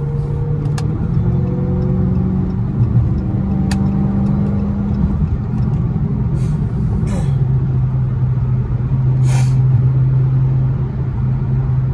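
Dodge Charger's V8 engine heard from inside the cabin at freeway speed, running in its normal, not sport, mode. The engine note rises as the car picks up speed about a second in, then falls to a lower, steady drone about seven seconds in, over road and tyre noise, with a few light clicks.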